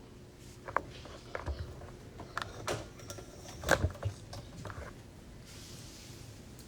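A string of light clicks and knocks, with a duller thump about midway, typical of objects being handled close to the microphone.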